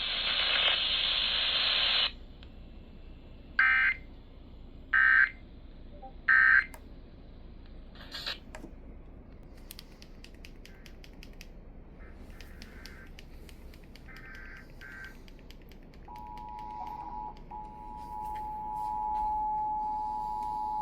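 Emergency Alert System signalling on a radio broadcast. A loud hiss cuts off about two seconds in, then come three short blasts of end-of-message data tones, about a second and a half apart. From about sixteen seconds the steady two-tone EAS attention signal sounds and grows louder.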